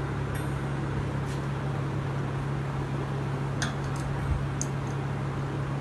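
Steady low hum and hiss of a fan-like machine running, with a few light clicks of a metal spoon against bowls and the tortilla in the middle.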